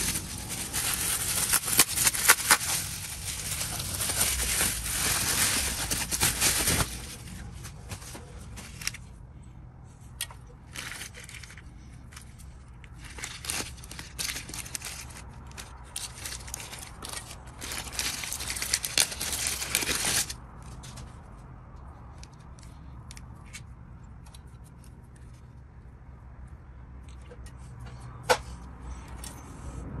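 Pink anti-static bubble wrap being unwrapped by hand, crinkling and crackling for the first several seconds, then a clear plastic bag rustling in short bursts. A single sharp click comes near the end.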